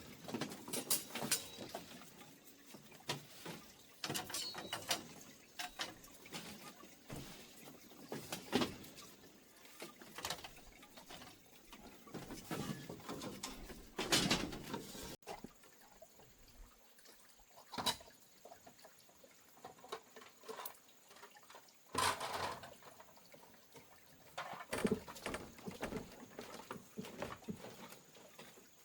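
Irregular knocks, taps and light scrapes of bamboo pieces being handled and fitted together while a bamboo shelf is built, with short pauses between them.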